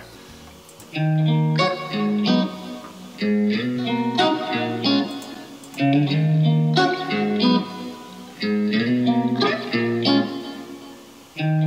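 A looped guitar sample playing back, its picked phrase repeating about every two and a half seconds. It is running through the KIT Core Compressor, which the producer hears adding a bit of crackling and distortion.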